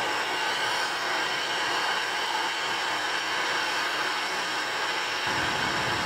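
Handheld gas torch flame hissing steadily as it heats a soldered pipe fitting to loosen the joint. A deeper rumble joins about five seconds in.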